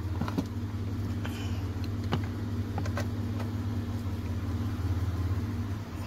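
Mitsubishi Pajero engine idling steadily at low revs, heard from inside the cabin. It runs normally after a cylinder-head overhaul. A few light clicks of oscilloscope lead connectors being handled sound over it.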